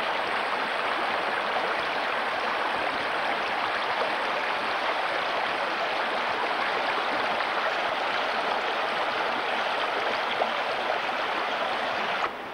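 Snowmelt creek running over rocks, a steady rushing of water that cuts off abruptly near the end.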